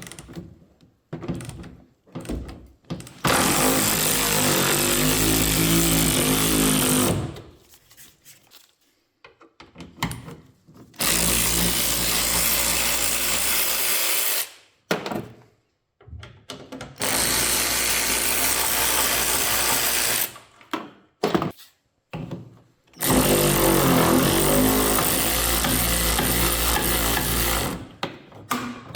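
A handheld power tool run four times for a few seconds each, its motor pitch wavering under load, with short clicks and knocks in the pauses between runs.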